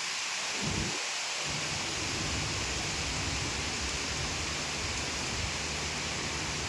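Steady rain falling, an even hiss, with a low rumble underneath from about a second and a half in.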